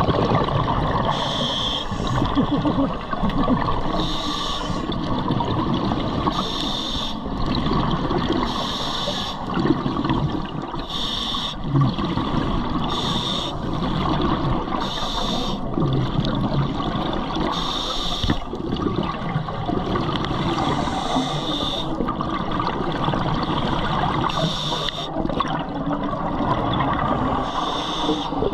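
Scuba regulator breathing heard underwater: a steady hiss and gurgle from the diver's own gear, broken every two to three seconds by a short rush of exhaled bubbles.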